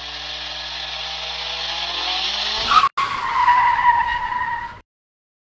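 Car sound effect: an engine revving up steadily and growing louder, then, after a sudden break about three seconds in, a tyre screech lasting nearly two seconds that cuts off abruptly.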